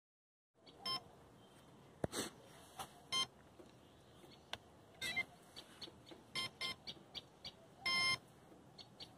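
A Flysky radio-control transmitter beeping as its buttons are pressed: a dozen or so short electronic beeps at uneven intervals, with one longer beep near the end.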